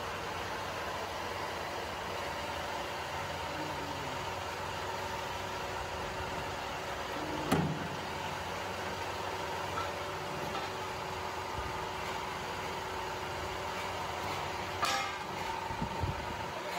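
Hydraulic press's motor and pump running with a steady hum. A sharp knock comes about seven and a half seconds in, and a few lighter clicks near the end.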